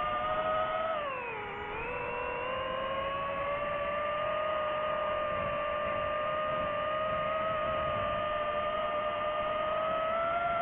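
DJI FPV quadcopter's motors and propellers whining steadily. The pitch dips briefly about a second in, then climbs slowly toward the end.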